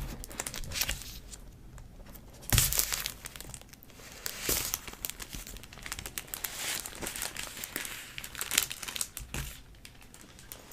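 Thin clear plastic wrap being pulled off a laptop box, crinkling and crackling in irregular bursts, the loudest about two and a half seconds in.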